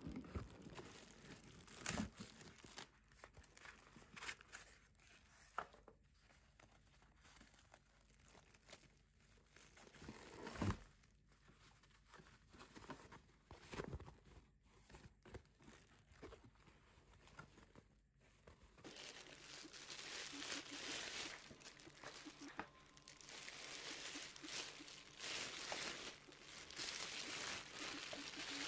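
Plastic packaging, cling wrap and bubble wrap, crinkling and rustling as it is handled and pulled off an item in a cardboard box. There are scattered sharp crackles at first, then denser, nearly continuous rustling over the last third.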